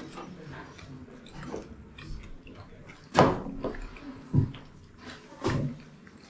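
People eating at a table: chewing and handling sounds, broken by a few short, louder knocks and rustles from food and plates. The loudest comes about three seconds in.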